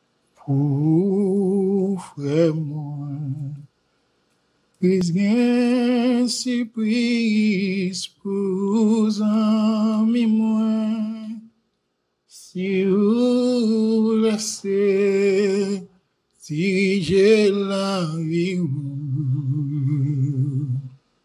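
A hymn sung unaccompanied, in about four phrases with short silences between them, the held notes wavering with vibrato.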